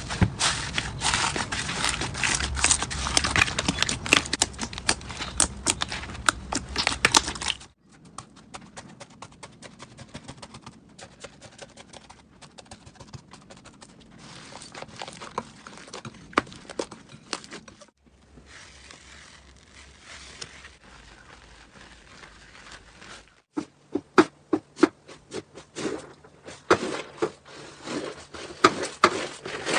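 Slime being squeezed and poked by hand: dense crackling, clicking and popping. The sound changes abruptly three times as clips cut, loudest in the opening seconds and again near the end, softer in between.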